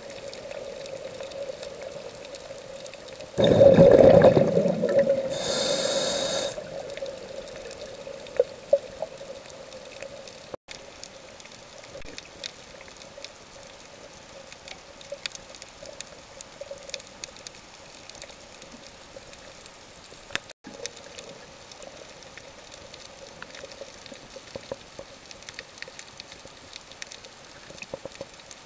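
Scuba diver breathing through a regulator, heard underwater: a loud gurgling rush of exhaled bubbles about three to five seconds in, then the hiss of an inhale through the regulator. After that comes a long stretch of faint scattered crackles and clicks over a steady low hum.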